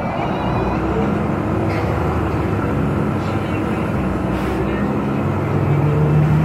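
Steady road noise and engine hum of a car driving in traffic, heard from inside the car, with the low hum shifting in pitch now and then.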